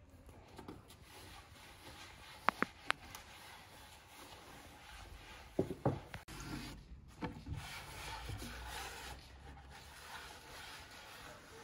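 A cloth rubbing and wiping across the top of a round wooden board, a continuous soft scrubbing. A few sharp knocks stand out about a quarter of the way in and again about halfway through.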